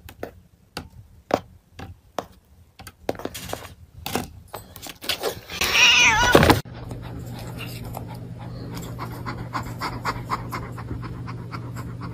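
Light clicks and taps, then a cat's loud, wavering yowl lasting about a second and a half, which cuts off suddenly. It is followed by a steady low hum with rapid ticking.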